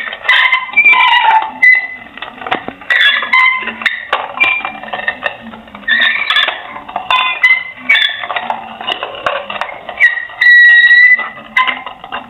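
A rapid run of loud, high-pitched squeaks and squeals, each lasting a fraction of a second and changing in pitch, with clicks in between.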